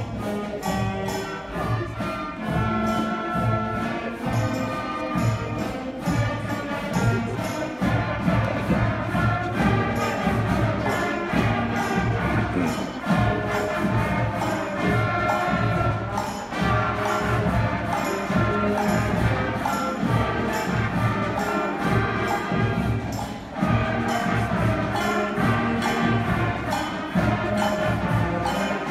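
Fifth-grade concert band of wind, brass and percussion instruments playing a piece together over a steady percussion beat.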